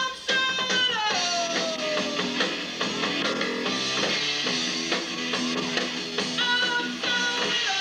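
A three-piece rock band playing live: electric guitar lead with held notes and long downward pitch slides, over bass guitar and drums.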